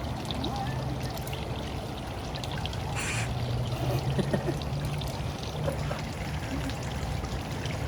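Water running and trickling steadily, with a low hum underneath and a short burst of hiss about three seconds in.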